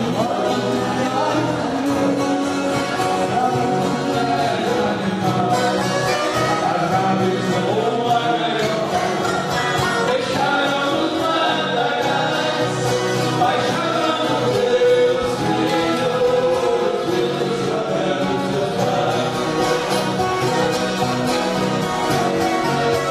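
Viola caipira orchestra, many violas and acoustic guitars strummed and plucked together, with voices singing a sertanejo caipira song over them.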